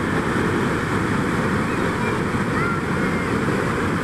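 Sol Duc Falls, a waterfall pouring into a narrow rock gorge close by, making a loud, steady rush of water. A few faint, short, high whistles sound over it around the middle.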